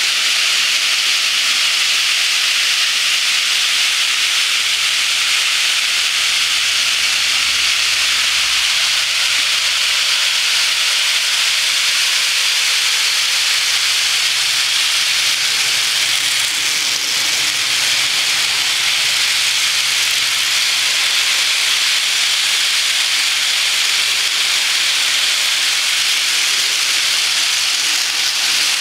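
HO scale model freight train running fast, its many coal gondolas rolling on the metal track: a steady, high rushing hiss of wheels on rails with a faint low hum underneath.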